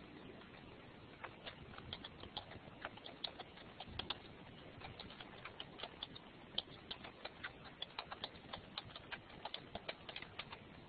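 Faint typing on a computer keyboard: quick, irregular key clicks that start about a second in and stop near the end.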